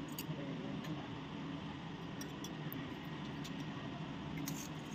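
A few faint clinks of stainless-steel spoons being set into steel tumblers, a slightly stronger one near the end, over a steady low hum.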